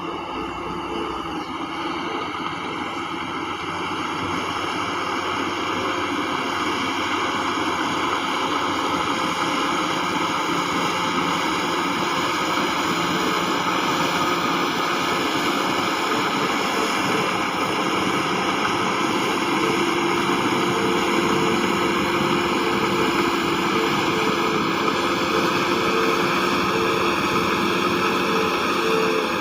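Heavy diesel earthmoving machinery running steadily, an engine drone with held tones under a wash of noise, growing gradually louder.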